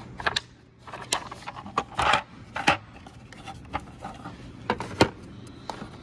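Hard plastic socket cases being handled and set down among metal tools in a tool box drawer: scattered knocks, clicks and rattles, the loudest about two seconds in and again about five seconds in.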